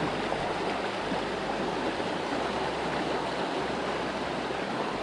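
Steady rush of a small river's flowing water.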